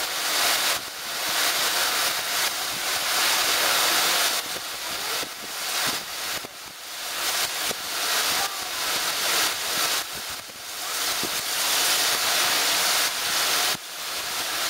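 Southern Railway U class 2-6-0 steam locomotive No. 31806 working a train towards the listener, its exhaust beats heard as uneven surges of hiss about once or twice a second.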